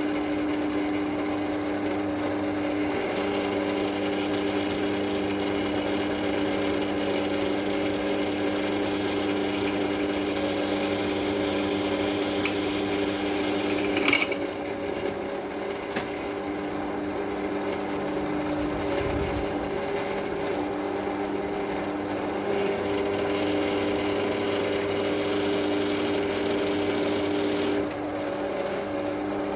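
Drill press running steadily with a motor hum while drilling holes in a steel railway-track anvil. A sharp click comes about halfway, after which the level drops and the tone shifts for several seconds.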